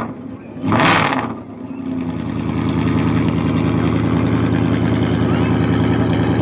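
V8 engine exhaust: a sharp throttle blip about a second in, then a steady idle.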